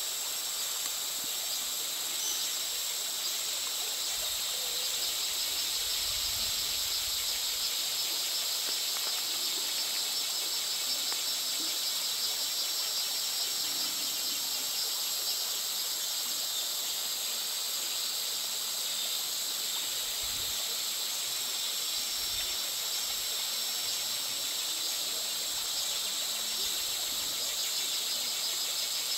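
Steady, high-pitched chorus of rainforest insects trilling, over the gentle flow of a shallow stream.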